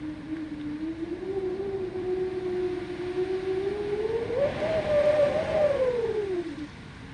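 Winter wind moaning: one long howl that slowly rises in pitch, peaks and is loudest about five seconds in, then falls away and dies out near the end, over a steady rush of wind.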